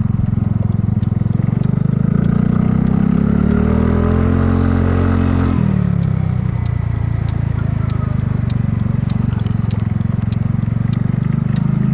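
Kymco People 250 scooter's single-cylinder four-stroke engine and exhaust running under way. Its exhaust leaks are patched with high-heat epoxy and it sounds good. The engine note rises as the throttle opens, drops sharply about halfway through, then runs steady, with a light ticking about every half second over the second half.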